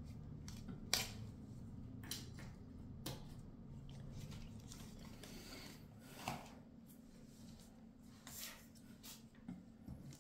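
Hands handling a smartphone and its packaging: several sharp clicks and taps scattered through, with rubbing and a brief rustle about five seconds in, over a low steady hum.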